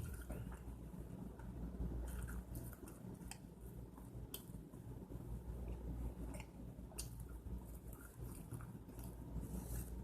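A person chewing food close to the microphone, with irregular small clicks and smacks, over a steady low hum.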